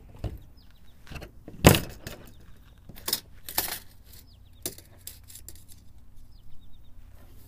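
Scattered clicks and knocks from a tape measure and PVC pipe being handled on a plastic folding table, about seven in all, the loudest about a second and a half in.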